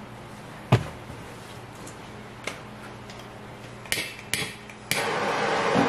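A sharp knock about a second in and a few lighter clicks as a Bernzomatic propane torch is handled, then near the end the torch lights and its flame hisses steadily.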